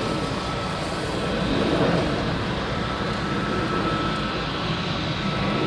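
Airbus A321neo's turbofan engines running at low taxi power as the airliner rolls slowly along the runway: a steady jet rush with a faint, thin, steady whine above it.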